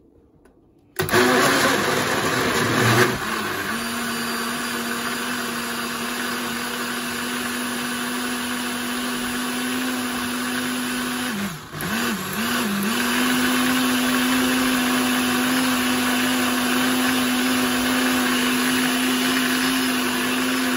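Kenwood Blend Xtract jug blender starting up about a second in. It sounds rough for the first couple of seconds as it chops whole fruit in milk, then settles into a steady motor whine as the mix turns smooth. Midway the motor briefly slows twice and picks up again as the dial is turned, and near the end it starts to wind down.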